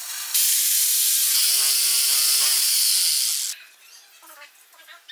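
Small handheld electric power tool running for about three seconds on wood, with a high hiss over a steady whine. It starts and cuts off suddenly, and a few light knocks follow.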